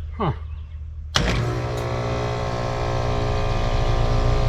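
Outdoor air-conditioning unit of a two-stage Trane system starting on a thermostat call: a sharp contactor click about a second in, then the compressor and condenser fan running with a steady hum. The unit is short-cycling, which the technician suspects is a tripping low-pressure switch. A brief falling chirp comes just before the click.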